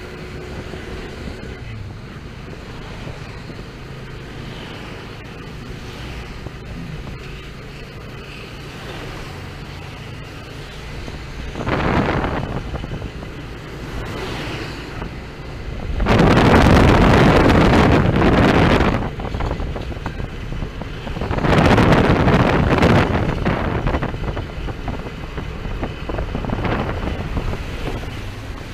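Motor tricycle's engine running steadily, with loud rushes of wind noise hitting the microphone about twelve, sixteen and twenty-one seconds in, the middle one lasting a few seconds.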